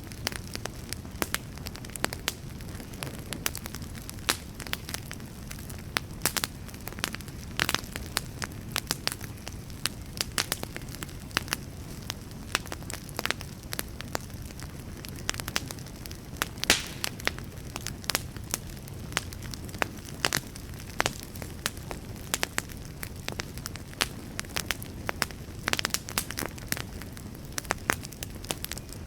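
Wood fire burning: a steady low rush of flames with frequent sharp, irregular crackles and pops of burning logs.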